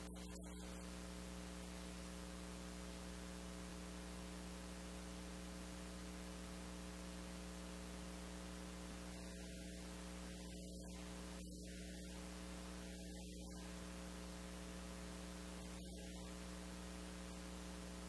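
Faint steady electrical hum with hiss: the noise floor of a SYNCO G1(A2) wireless microphone recording a quiet room.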